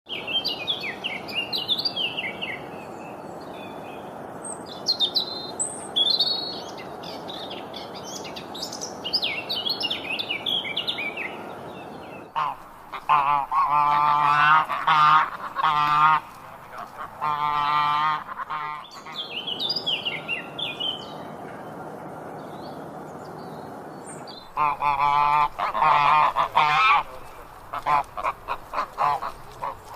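Birds calling: high chirping calls at first, then two bouts of loud, repeated calls, about halfway through and again near the end.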